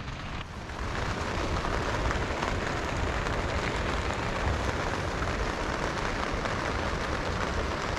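Steady rushing water noise, rising a little over the first second and then holding even.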